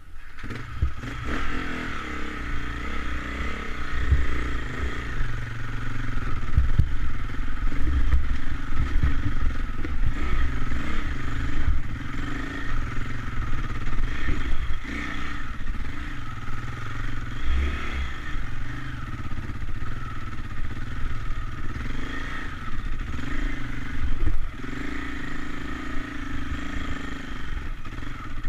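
KTM enduro motorcycle engine working up a steep rocky climb, the revs rising and falling continuously as the throttle is worked, with a heavy low rumble and some clatter over the stones.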